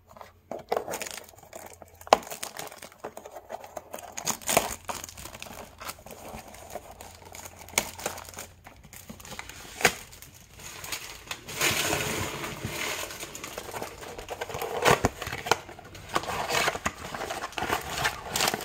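Plastic shrink-wrap crinkling and tearing as a baseball card blaster box is unwrapped and opened, with sharp clicks and rustling of the cardboard box and foil card packs being handled. The crinkling is densest in the last third.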